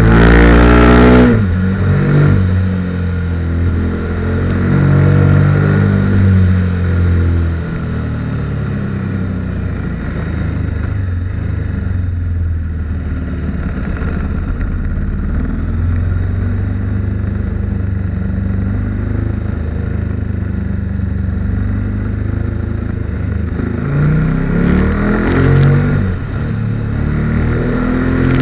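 KTM 1290 Super Duke R's V-twin engine heard from on board while riding. The revs fall sharply at the start, the engine runs steadier and quieter through a long middle stretch, then revs up again about 24 seconds in and drops off near the end.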